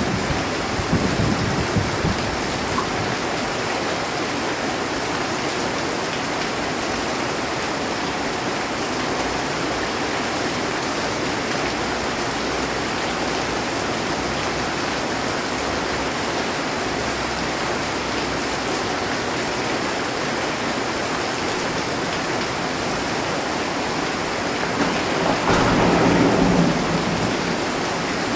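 Heavy rain drumming steadily on a metal roof, with a thunder rumble dying away at the start and another, louder rumble swelling up about 25 seconds in and fading a few seconds later.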